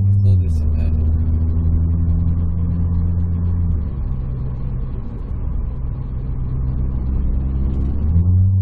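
Suzuki Swift Sport ZC33S's 1.4-litre turbocharged four-cylinder and its deep-bass exhaust, heard from inside the cabin while driving, a steady low drone. It fades about four seconds in and comes back louder near the end.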